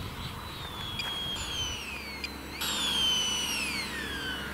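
Electric ducted fan of an RC Harrier jet model whining high, its pitch falling steadily as the plane comes in to land.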